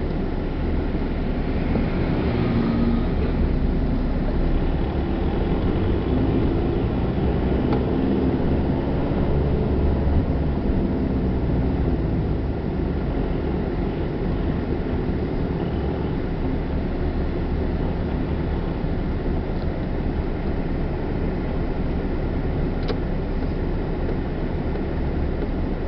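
Low, steady rumble of the car's engine and tyres heard from inside the cabin as it drives over an uneven, patched street. A city bus passes close alongside near the start.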